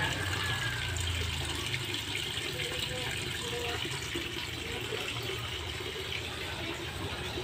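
Steady splashing and trickling water in a concrete koi pond, with a low rumble underneath.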